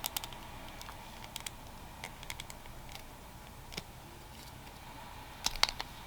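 Small plastic figure parts clicking and tapping as they are handled and pressed together: faint scattered clicks, with a short cluster of louder ones near the end.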